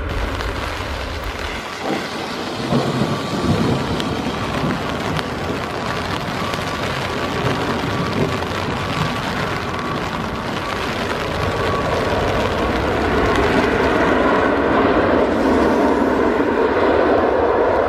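Jet engines of an Airbus A320-family airliner running at high power on a rain-soaked runway: a broad rushing noise mixed with the hiss of rain and spray. About two seconds in the sound changes abruptly, then grows steadily louder through the last several seconds as the jet comes closer.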